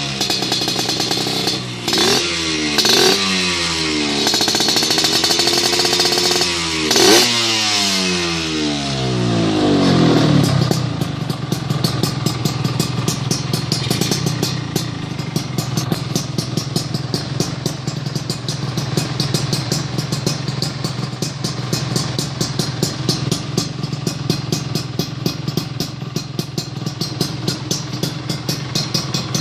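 Suzuki RGR 150's two-stroke single-cylinder engine through an aftermarket racing exhaust. It is blipped in several quick revs over the first ten seconds, the last one dropping slowly back down. It then settles into a steady idle with a rapid, even popping beat.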